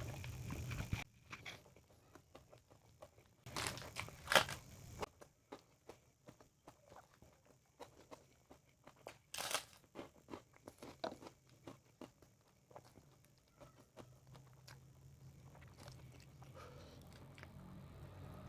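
Close-up eating sounds: crunchy bites and chewing of crisp fried food, with louder crunches about four and nine seconds in, then softer chewing.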